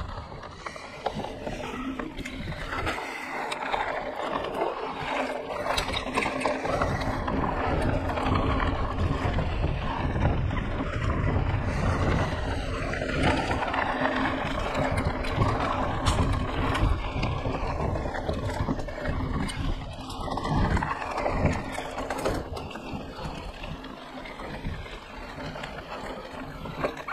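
Mountain bike riding on a dirt trail, heard from a body-mounted action camera: wind rush and buffeting on the microphone, with many small knocks and rattles from the bike over the rough ground. The low buffeting grows heavier through the middle stretch and eases near the end.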